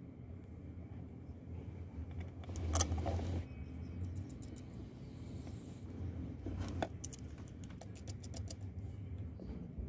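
Small metal parts being handled: light clicks and rustling as a nut and wire ring terminal are fitted by hand onto a bolt on a copper strip, with sharper clicks about three seconds in and again near seven seconds.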